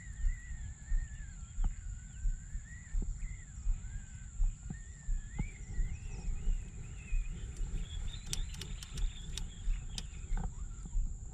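Wind buffeting the camera microphone in gusts, a low rumble that rises and falls. Under it runs a faint, wavering high whine, and a few sharp clicks come about eight to ten seconds in.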